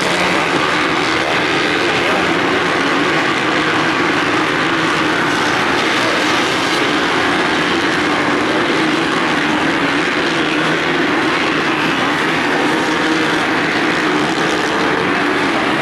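Several motocross bikes racing on a dirt track: many off-road motorcycle engines revving at once, blending into one loud, steady sound.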